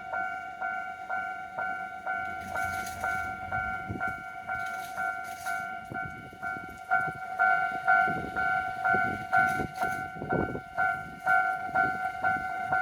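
Japanese railroad crossing alarm ringing its electronic two-tone 'kan-kan' bell in a steady, rapid rhythm, the sign that the crossing is active for an approaching train. From about eight seconds in, low thumps and a rumble come in under it.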